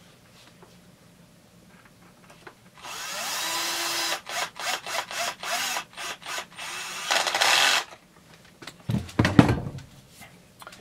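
Cordless drill with a socket extension driving a bolt into a chainsaw body. It runs steadily for about a second, then in many short trigger bursts over the next few seconds. A few dull knocks follow near the end.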